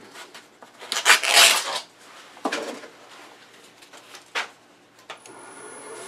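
Sheet of 600-grit sandpaper being handled, with a rough rustling burst about a second in and a couple of light knocks. Near the end the wood lathe starts up, a steady high whine that slowly builds.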